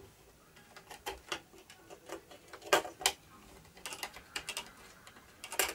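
Irregular small clicks and taps of a hand tool and fingers working on a small circuit board, with the sharpest clicks about three seconds in and again near the end.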